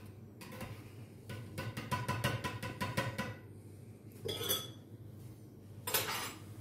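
Metal spoon stirring soup inside an opened tin can, clinking rapidly against the can's sides with a ringing tone for about two seconds. A single clink follows about four seconds in, then a short burst of noise near the end.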